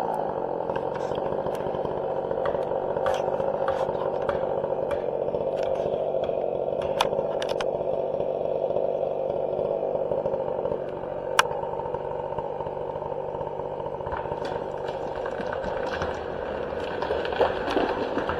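Chainsaw running steadily under load, cutting timber, with scattered sharp clicks over the engine.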